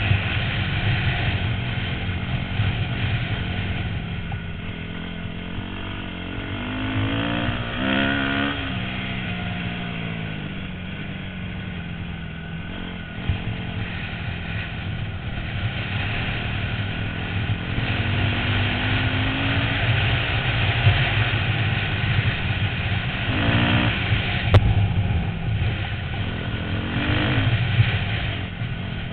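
A 250cc dirt bike engine running hard around a dirt flat track, heard from a helmet-mounted camera. The pitch rises and falls several times as the rider works the throttle through the laps.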